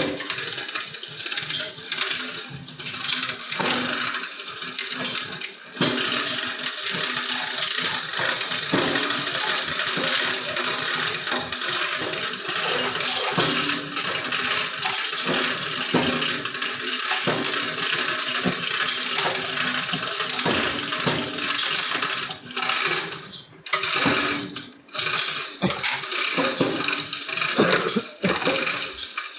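A small machine running with a steady rattling whir, briefly dropping out a few times near the end.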